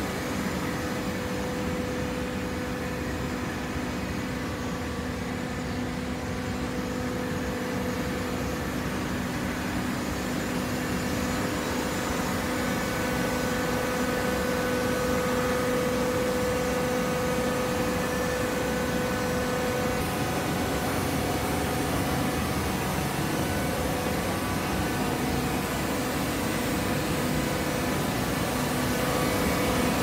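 Horizontal hydraulic baler's power unit running: a steady machine hum with a low whine, growing slightly louder about halfway through.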